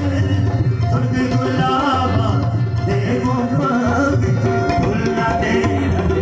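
Live South Asian folk music: a harmonium's held chords, tabla strokes, and a male voice singing a gliding melody over them.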